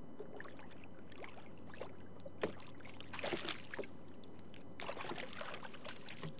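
Hooked largemouth bass splashing and thrashing at the surface beside a kayak as it is brought in. The splashes come in a few short bursts, loudest about two and a half to three and a half seconds in, over a faint steady hiss of water.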